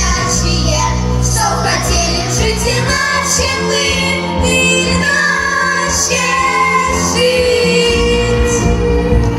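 A song from a stage musical: singing voices over a recorded pop-style backing track, with held sung notes. The bass drops out for a few seconds in the middle, then returns.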